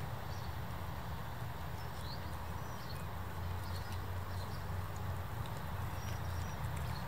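Bernese mountain dog chewing a pig's ear, with irregular faint crunches and clicks from its jaws, over a steady low rumble.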